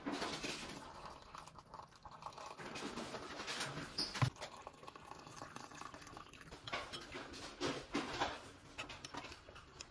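Hot water poured from a jug into glass mugs of coffee powder, then a metal spoon stirring and clinking against the glass several times.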